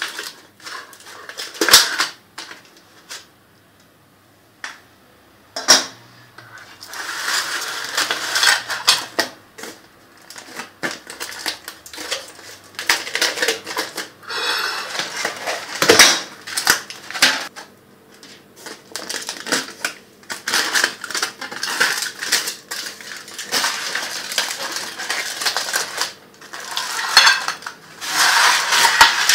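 Metal springform pan clinking and clattering as it is unlatched and handled, with sharp knocks and stretches of crinkling aluminium foil as the cake on its foil is moved onto a plate.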